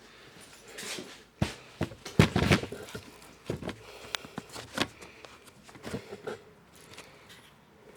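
Irregular clicks and knocks of things being handled, loudest in a short cluster a little over two seconds in; the saw motor is not running.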